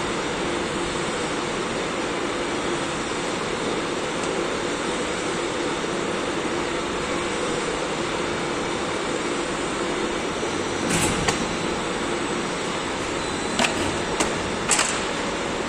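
Plastic injection moulding machine running through a cycle with a steady hum. Near the end, as the mould opens, there is a short rush of noise and then three sharp knocks.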